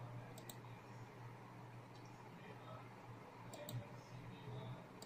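Faint short clicks in three quick pairs, heard over a steady low electrical hum.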